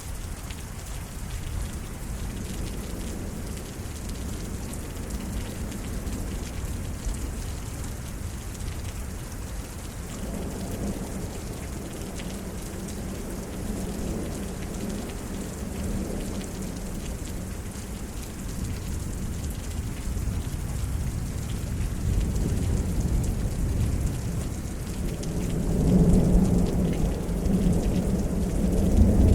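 Steady rain falling in a thunderstorm, with thunder rolling low about ten seconds in, fading, then building louder again near the end.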